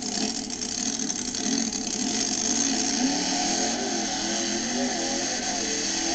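Monster truck engine running at full throttle, its pitch wavering up and down as the truck races and jumps, with a harsh rattly distortion. It cuts off abruptly near the end.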